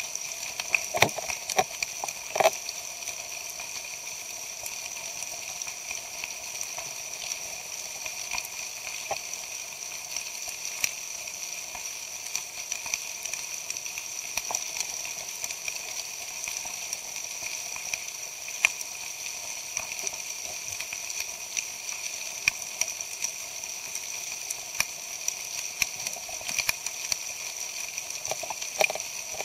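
Underwater ambience over a rocky reef: a steady fine crackle of many small clicks, with a few louder knocks in the first three seconds.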